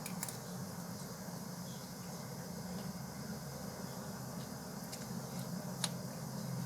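Eating sounds: chewing with a few sharp clicks of a spoon on a plate. The loudest click is near the end.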